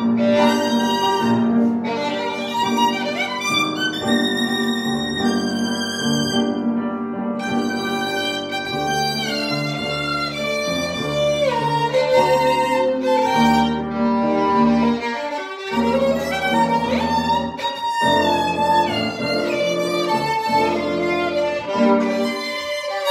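Violin played with a bow, a continuous melody with vibrato on the held notes, over a piano accompaniment with low notes that change every few seconds.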